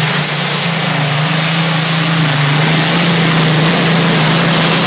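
Competition pulling tractor's engine running flat out under load during a pull: a loud, steady engine note with a dense hiss over it, holding its pitch throughout.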